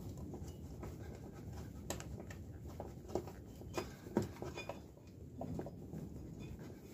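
Scattered light clicks and taps of small engine parts being handled during a strip-down, over a faint steady low background rumble.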